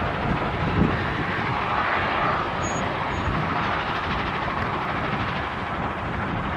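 Steady rushing outdoor background noise, even throughout, with no distinct events.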